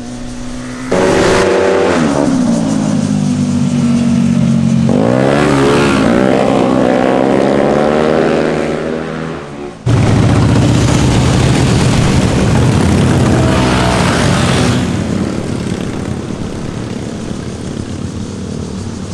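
Motorcycle engines passing on a winding road. First a sport bike's engine note drops in pitch as it slows for a bend, then rises and falls as it revs through. About ten seconds in, a rougher, deeper engine sound of several motorcycles riding past takes over and fades away.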